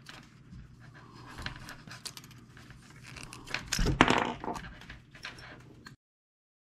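Stranded steel control cable being hand-spliced: stiff wire strands ticking and scraping against each other and a screwdriver as one strand is pushed through under two others. The clicks and rattles are loudest about four seconds in and cut off near the end.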